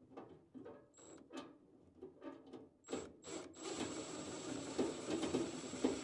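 Small motor of a handheld power screwdriver whirring in short bursts, then running steadily from about three and a half seconds in as it drives screws in the furnace.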